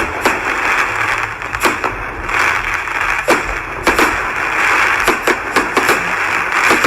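A steady hiss with many irregular sharp pops and cracks scattered through it.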